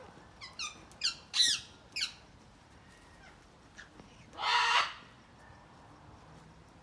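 Parrots calling: a quick run of short squawks in the first two seconds, then one longer, harsh screech about four and a half seconds in.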